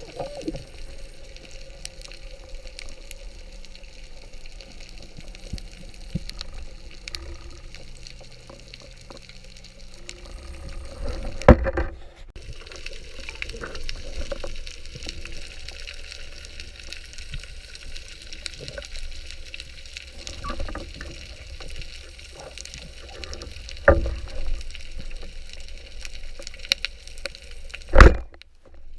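Underwater sound picked up by a diving camera: a steady wash of water noise and low rumble, with a few sharp knocks, the loudest about a third of the way in and near the end.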